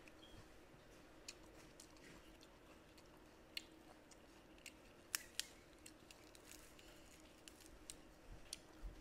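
Person chewing raw bitter mustard greens close to the microphone: sparse, faint crisp crunches and mouth clicks, a few sharper ones midway, over a faint steady hum.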